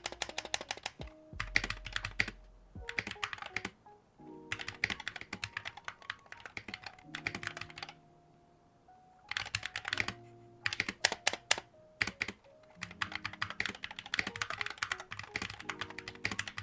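Typing on a MonsGeek FUN60 Pro keyboard with magnetic Hall-effect switches and PBT double-shot keycaps: runs of fast keystroke clicks, broken by short pauses about four seconds in and again around eight to nine seconds.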